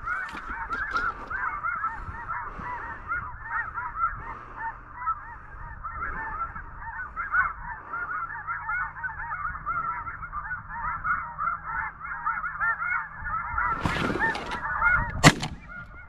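A chorus of snow geese calling, many overlapping high honks at once. Near the end comes a short burst of rustling as the layout blind is thrown open, then a single loud shotgun shot.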